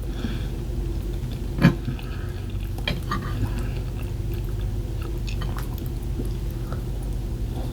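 A person chewing food close to the microphone, with a sharp click about one and a half seconds in and a few smaller clicks later, over a steady low hum.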